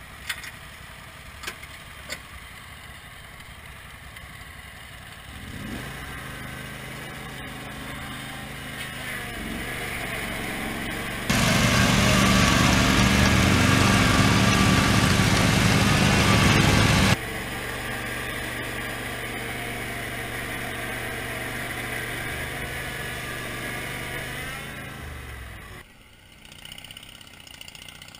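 Garden tractor engine working through a tractor pull. The steady engine hum comes in about five seconds in and turns much louder for about six seconds in the middle, starting and stopping abruptly. It then settles back to a steady hum and dies away near the end.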